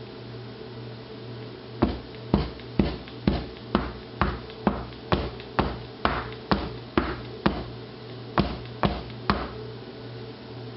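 A wooden loaf mold full of freshly poured cold process soap batter knocked down on the table about sixteen times, roughly twice a second with a short pause near the end: tapping the mold to settle the batter and release trapped air bubbles.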